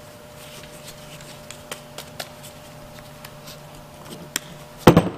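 Hands-on handling noise from working on exhaust heat wrap: scattered small clicks and rustles over a faint steady hum, with one sharp knock about five seconds in.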